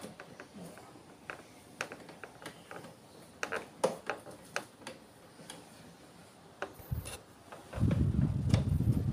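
Scattered sharp plastic clicks and taps from hands working on a wall-mounted split air conditioner's indoor unit, around the swing louver and its motor socket. Near the end a loud low rumble comes in and keeps going.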